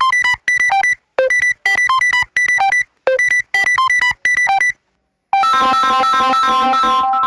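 Built-in Samsung Galaxy A50s phone tones playing. First a short phrase of quick bright electronic notes repeats about every two seconds. After a brief pause a little after four and a half seconds, a different, fuller tone with held notes begins.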